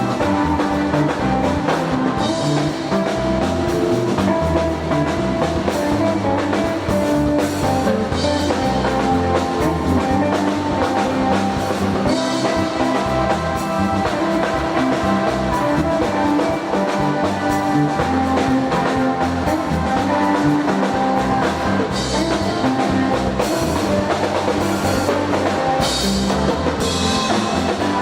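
Instrumental gospel praise music played by a band, with a drum kit and guitar.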